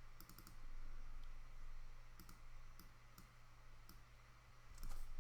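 Scattered soft clicks of a computer mouse and keyboard, some in quick little runs, over a faint steady low hum.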